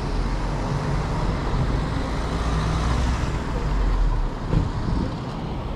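Street traffic: cars going by, a steady rumble of engines and tyres.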